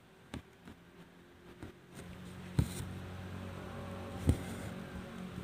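Embroidery needle pushed through fabric stretched taut in a hoop and thread pulled through, giving a few soft ticks and two sharp taps, about halfway and near the end. A steady low hum starts about two seconds in.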